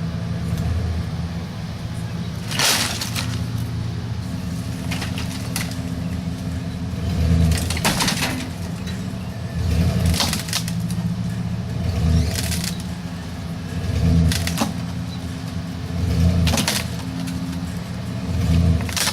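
An engine running steadily, its low hum swelling every couple of seconds, with a short sharp noise about every two and a half seconds.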